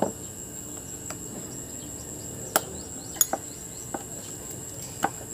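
A knife blade tapping against a ceramic bowl while chilies are cut inside it: about five sharp clicks spread over a few seconds. Underneath runs a steady, high-pitched insect drone.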